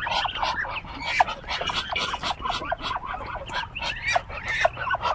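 A flock of ducklings peeping without pause, many short high calls with falling pitch overlapping one another.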